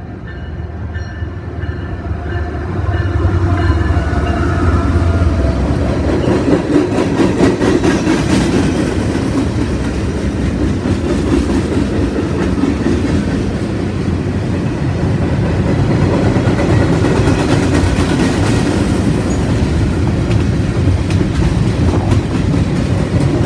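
CSX diesel freight train passing close by. A rumble grows louder over the first few seconds as the train arrives. Then the steady rumble and clickety-clack of wheels on the rails continues as boxcars, flatcars and covered hoppers roll past.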